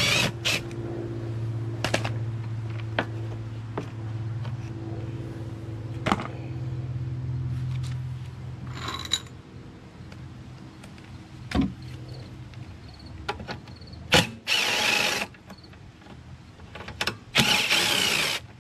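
A 20-volt cordless drill-driver whirring in short bursts as it backs out the bolts holding a lawn mower engine's recoil starter cover, twice near the end. Metal parts clank a few times in between, over a low steady hum that fades out about halfway through.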